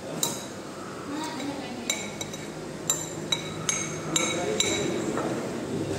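A utensil clinking against a dish while eating, about seven sharp ringing clinks spread over the first few seconds.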